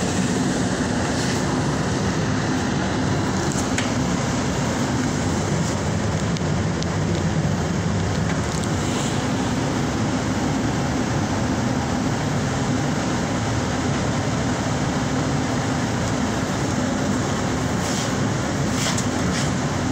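Metro subway train running, heard from inside the car as a steady noise strongest in the low range, with a few faint clicks scattered through it.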